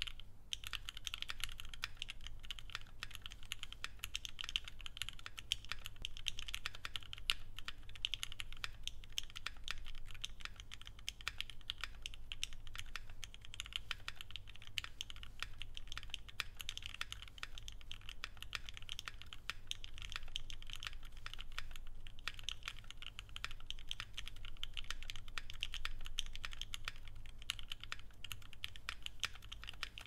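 Continuous fast typing on a Bakeneko60 mechanical keyboard with lubed OA (Original Aspiration) switches, 105 g springs and ePBT keycaps: a steady, dense stream of key clacks.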